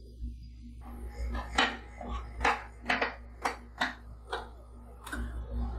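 Metal spatula blade tapping down onto a steel cold plate as it scores lines through a thin sheet of frozen ice cream: a series of sharp metallic taps, about two a second, starting a second or so in.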